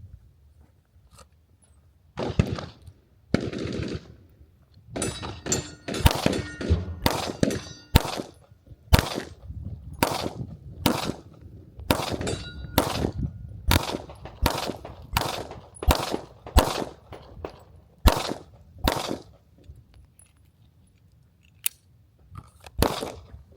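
Pistol shots fired in an indoor range, one after another about once a second for some fifteen seconds, then a pause and two more shots near the end. A couple of seconds in there are two brief rushes of noise before the firing starts.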